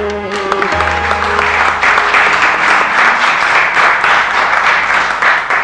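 The last held notes of the musical accompaniment die away in the first second, then a small audience breaks into applause that builds to steady clapping.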